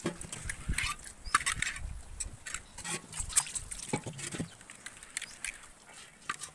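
Water splashing over an iron tawa as its scrubbed surface is rinsed, in irregular short splashes.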